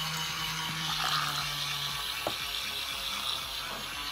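Small electric motor of a toy washing machine humming while soapy water swishes in its tub. The motor stops about two seconds in, and the water sounds go on.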